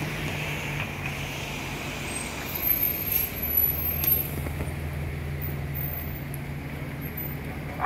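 City transit bus engine running in a steady low hum as the bus pulls up and stands at the stop, a little louder for a moment about three to four seconds in.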